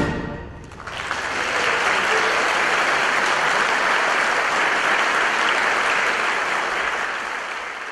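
The music's final chord dies away, and about a second in an audience starts applauding, steady clapping that thins out near the end.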